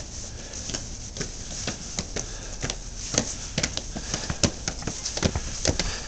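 Footsteps of several people walking on pavement and then climbing stone steps: irregular sharp heel clicks and scuffs, several a second, growing louder and more frequent about halfway through.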